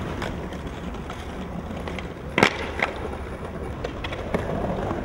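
Skateboard wheels rolling on smooth pavement, a steady rumble, with two sharp clacks of the board about halfway through, less than half a second apart.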